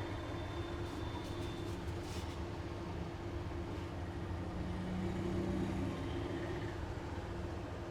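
Steady low rumble of background noise with a faint hum, unchanging throughout.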